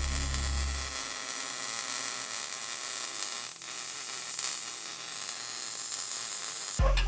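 MIG welder arc crackling and hissing steadily while welding an exhaust pipe, with a brief break a little past the middle.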